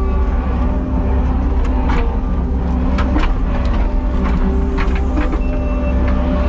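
Kubota skid steer's diesel engine running steadily, heard from inside the cab, with several sharp clanks and knocks scattered through it.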